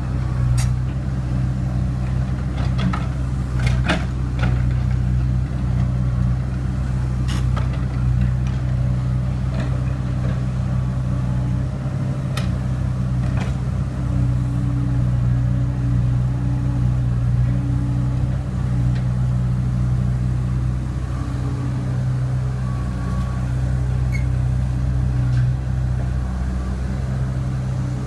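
Excavator's diesel engine running steadily at a constant drone, with a few short sharp knocks in the first half.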